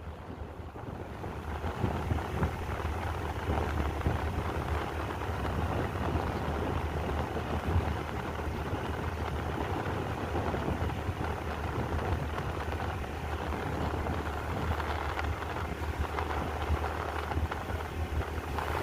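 Steady background rumble with an even hiss and no distinct events.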